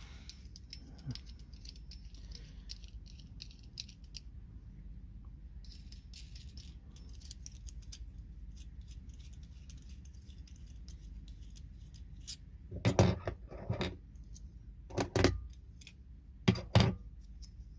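Small camera-mount parts being handled: light clicking and rattling, then a few louder knocks and clacks in the last five seconds.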